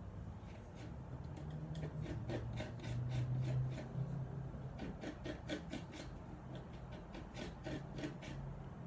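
Oil paint being worked on a wooden palette: quick scraping, rubbing strokes, about three a second, pausing briefly past the middle and then resuming. A low steady hum runs underneath, loudest a few seconds in.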